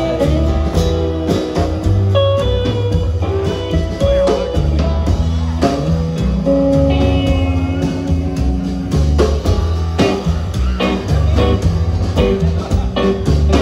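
Live band playing an instrumental passage: upright double bass holding down the low notes, drum kit, acoustic rhythm guitar and a guitar playing the melody line.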